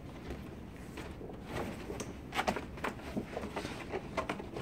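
Clear vinyl film and its backer sheet crinkling and crackling as they are handled and rolled up, an irregular scatter of soft crackles and taps over a low steady hum.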